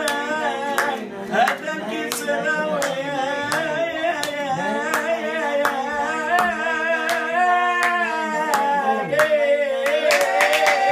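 Group singing led by a man's voice, with steady hand-clapping keeping the beat.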